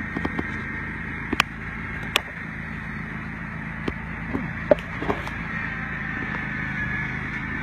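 Ride-on mower's engine running steadily as it cuts long grass, with a few short sharp clicks and knocks over it.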